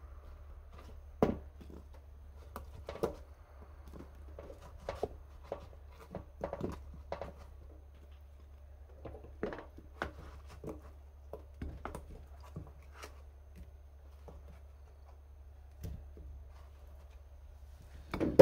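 Cut potato chunks being picked up and dropped into a bowl: light, irregular knocks and clicks of the pieces against the bowl and cutting board, over a steady low hum.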